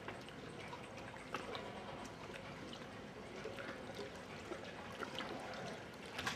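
Canal water lapping and trickling, with many small scattered splashes and drips.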